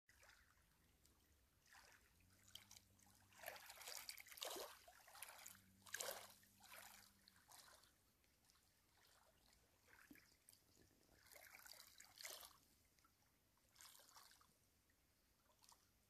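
Faint small waves lapping and trickling over the pebbles at the water's edge, in soft, irregular washes.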